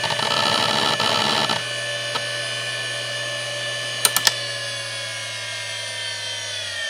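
Seagate Barracuda 9LP ST39173W, a 7,200 rpm ball-bearing SCSI hard drive, running with a steady high whine and rapid head-seek chatter for the first second and a half. Three sharp clicks come about four seconds in. Near the end the power is cut and the whine starts falling in pitch as the platters spin down.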